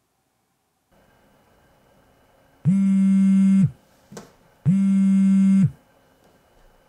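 Telephone ringing tone heard in the phone earpiece while a call connects: two identical buzzy tones about a second long, a second apart, over faint line hiss, with a small click between them.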